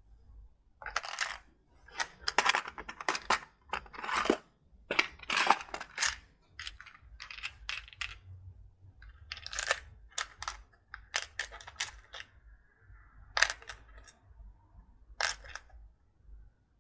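Small plastic LEGO parts clicking and clattering as they are handled and dropped into plastic picking trays: irregular sharp clicks, some single and some in quick runs.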